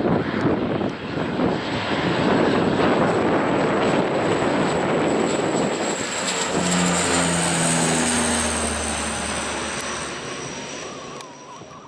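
De Havilland Canada Dash 8-Q200's twin Pratt & Whitney Canada PW123 turboprops at take-off power. There is a loud rush of engine and propeller noise as it rolls and lifts off. From about six seconds in, a steady propeller drone and a high whine take over, the whine falling slightly in pitch as the aircraft passes overhead and climbs away, fading near the end.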